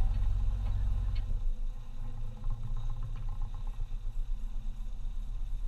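SUV crawling down a rutted dirt trail: low engine and drivetrain rumble, steady for about a second and a half and then uneven, with scattered small knocks and rattles from the vehicle over the bumps.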